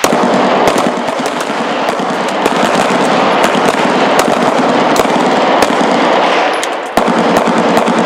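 A firing line of semi-automatic pistols shooting at once: many overlapping handgun shots a second, blurring into a continuous crackling volley.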